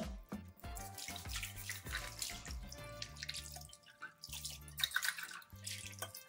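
Water running from a tap and splashing into and off a stainless steel mug as it is rinsed by hand, coming in uneven gushes, loudest about two seconds in and again near five seconds.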